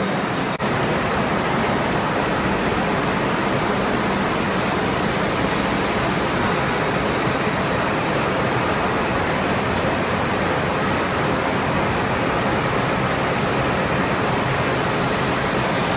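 Steady, even machinery noise of a large factory hall full of running gear-making machine tools.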